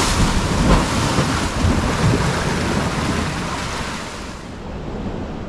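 Ocean waves surging in and splashing over shoreline rocks, a loud rushing wash that fades away near the end as the water draws back.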